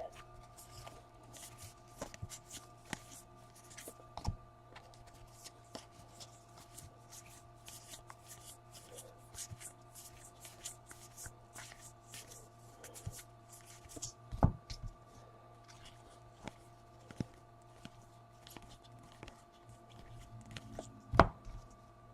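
Trading cards being flipped through by hand: a run of quick, soft card flicks and rustles, with a louder knock twice, about 14 and 21 seconds in, over a faint steady hum.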